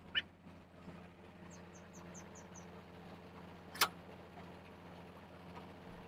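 Truck-mounted borewell drilling rig's engine running faintly and steadily in the background. About one and a half seconds in comes a quick run of six high chirps, and near four seconds a single sharp click.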